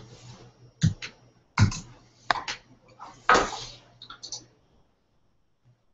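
Computer keyboard being typed on: a handful of irregular key taps and clacks, ending after about four and a half seconds.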